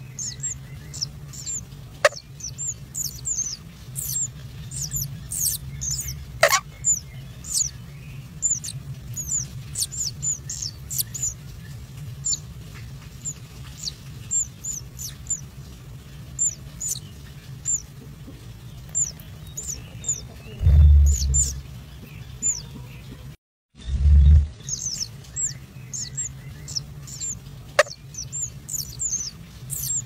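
Nestling birds cheeping rapidly: many short, high chirps, each dropping in pitch, several a second, over a low steady hum. A few sharp clicks and a low thump break in, and the sound cuts out briefly about three quarters of the way through.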